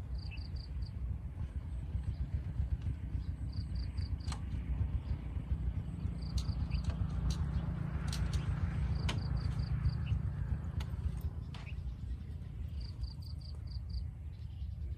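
A small motor scooter's engine running slowly, its rumble strongest in the middle and easing off about two-thirds of the way through. An insect chirps several times in short trains of rapid high pulses.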